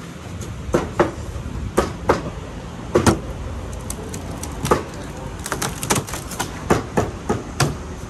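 Wooden knocks and clatters of a plywood shipping crate being opened: its panels and lid are lifted off and set down. It is a string of irregular sharp taps and bangs, the loudest about one and three seconds in, with a quick flurry of taps around six seconds.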